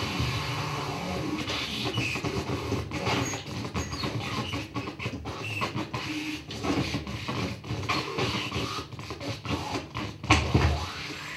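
Experimental electroacoustic soundtrack built from body-movement sounds and the body's contacts with a floor: a dense run of clicks, scrapes and brief scattered tones over a continuous noisy bed, with a louder hit about ten seconds in.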